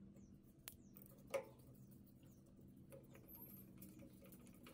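Near silence over a faint hum, broken by small ticks and clicks from a screwdriver turning a screw into a mini excavator's control lever grip, with a sharper click about a second and a half in.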